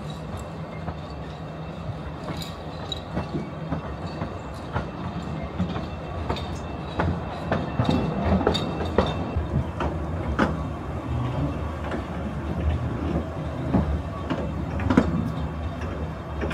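Narrow-gauge railway carriage running along the track: a steady rumble from the wheels on the rails, broken by frequent sharp clicks and rattles.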